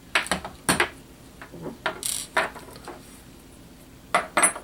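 About six sharp clicks and clatters of a small screwdriver and the plastic pistol grip of an airsoft rifle being handled and set down on a wooden tabletop, with a brief scrape about two seconds in.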